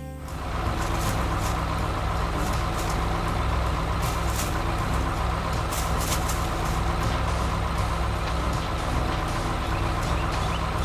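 Combine harvester's diesel engine running steadily under load, a low rumble with mechanical clatter and rushing noise, starting up just after the start.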